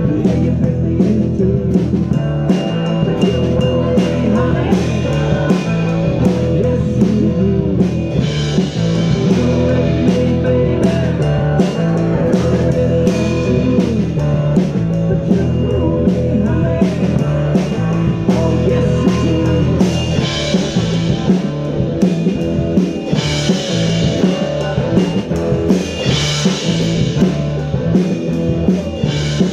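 Live rock band of electric guitar, bass guitar and drum kit playing an instrumental passage, with cymbals washing in at several points.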